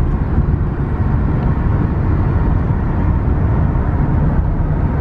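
Steady road noise inside a moving car's cabin: a low, even rumble with no breaks.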